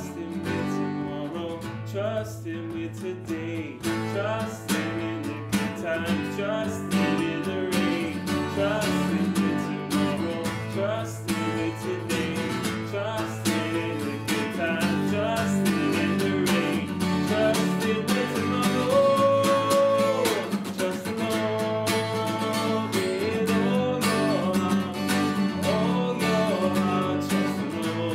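Acoustic guitar strummed to accompany singing of a children's worship song.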